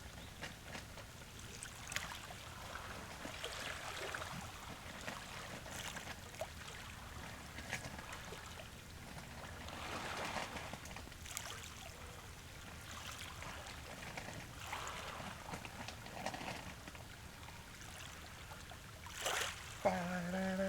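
Small waves of a calm sea lapping on the beach, soft swells coming every couple of seconds. Near the end a short pitched sound joins in.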